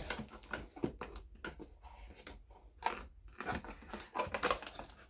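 Cardboard box and paper packaging being handled and rummaged through: irregular rustling, crinkling and light knocks.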